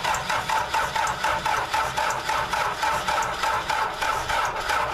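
Starter cranking the freshly rebuilt four-cylinder diesel of a Case 580C in a steady, even beat of compression strokes, without the engine catching. The battery is low.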